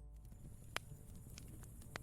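Campfire crackling: two sharp pops about a second apart over a low rumble from the burning fire.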